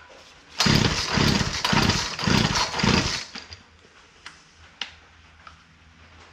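Old two-stroke chainsaw engine firing up and running unevenly in about five surges for two and a half seconds, then dying out: a brief start after years of sitting, with the engine possibly flooded.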